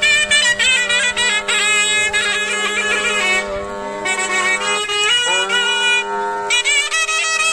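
Shehnai-style double-reed pipe playing a wavering, ornamented melody over a steady held drone note. The melody breaks off briefly twice.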